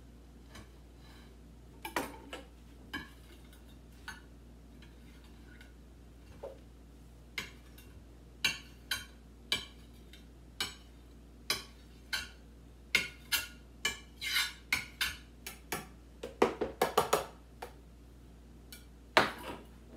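Kitchen knife chopping broccoli on a cutting board: irregular sharp knocks, a few at first, then coming thick and fast, with a quick flurry near the end.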